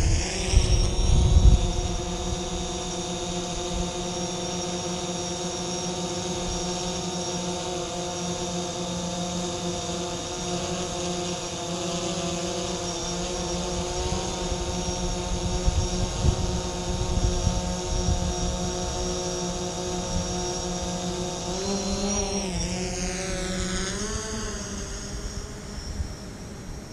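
DJI Phantom 4 quadcopter hovering, its propellers giving a steady whine, with a low rumble of buffeting air in the first couple of seconds after launch. From about 22 seconds in the pitch wavers as the drone climbs away, and the sound grows fainter near the end.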